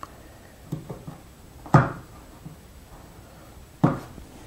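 Hand tools handled on a wooden workbench: a few light taps, then two sharper wooden knocks about two seconds apart.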